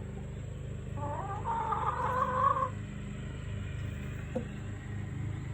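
A domestic hen calls once, a wavering, pitched call lasting under two seconds, over a steady low hum.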